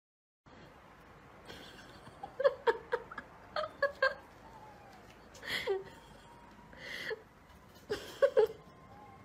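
Young kitten mewing in short high squeaks: a quick run of them, then a few more spaced out, while it is petted.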